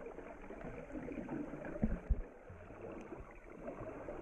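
Water sloshing and gurgling, with a couple of dull knocks about two seconds in.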